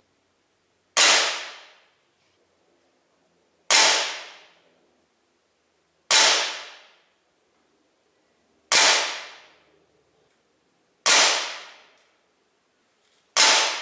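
ASG Dan Wesson 715 6-inch CO2 pellet revolver firing six shots, about two and a half seconds apart. Each shot is a sharp crack that dies away in under a second.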